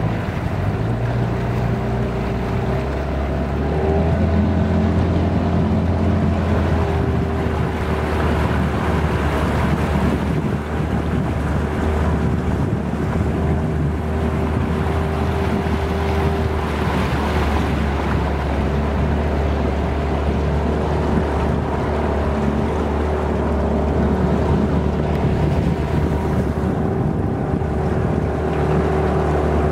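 Motorboat engine running steadily underway, rising a little in pitch about four seconds in, with wind buffeting the microphone.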